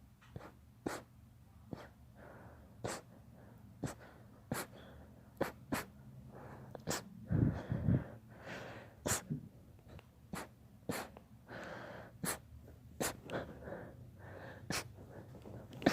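A long run of short, quiet sneezes, one every half second to a second, with faint breathing between them. A louder, deeper burst comes about seven seconds in.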